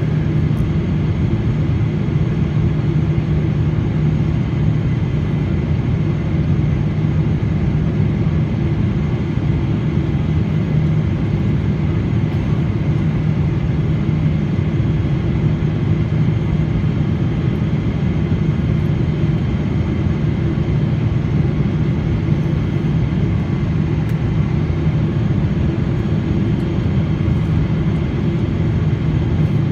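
Jet airliner cabin noise during descent: a steady drone of engines and rushing air, with a low even hum and no changes.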